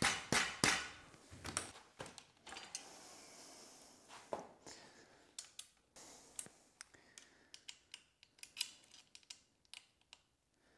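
Aluminium extrusion profiles and metal fittings clicking and clinking as they are handled and fitted together, with a longer scraping slide about three seconds in.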